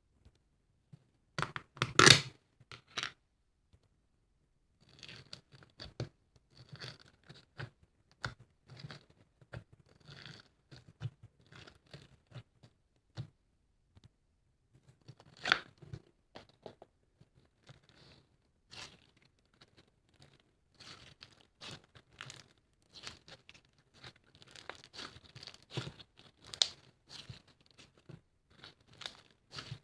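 Irregular close-up crinkling and tearing handling noises made up of many short clicks and rustles, with a sharp louder crunch about two seconds in and another around the middle.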